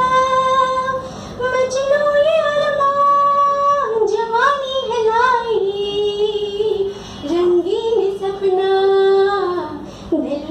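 A woman singing a Hindi film song solo without accompaniment, in long held notes that glide from pitch to pitch.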